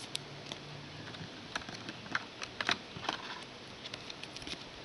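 Trading cards being handled and flicked through one behind another, giving scattered light clicks and snaps of card stock.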